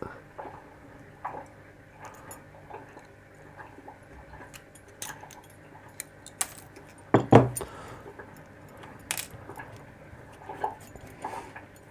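A small pin tumbler lock and a metal shim being handled and worked: light metallic clicks and rattles scattered throughout, with a louder knock about seven seconds in.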